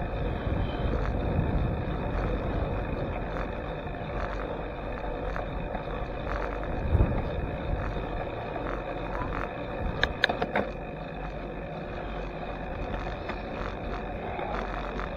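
Wind and road noise on a bicycle's handlebar-mounted camera while riding on a paved road: a steady rushing hiss and rumble. There is a low thump about seven seconds in and a short cluster of sharp rattling clicks about ten seconds in.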